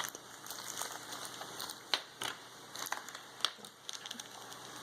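Toy packaging being handled and opened: scattered crinkling with several sharp clicks, the loudest around the middle.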